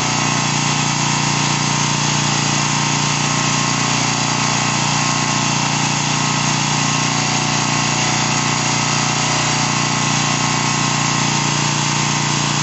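Electric hospital bed's actuator motor running with a steady, even hum as it lowers the backrest section.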